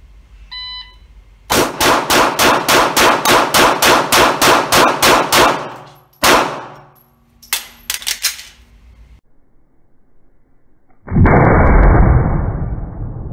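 Shot-timer start beep, then a 9mm Gen5 Glock 17 pistol fired in rapid strings at an indoor range: about sixteen shots at about four a second, then one more shot and a quick handful after a short break. Near the end comes a loud steady rushing noise.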